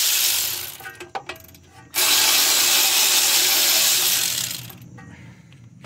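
Power tool running in two bursts, a short one at the start and a longer one of about three seconds, spinning out a 12 mm bolt on the front steering knuckle, with a few metallic clicks between the bursts.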